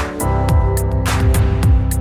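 Background music with a steady beat, pitched melodic notes over a bass line.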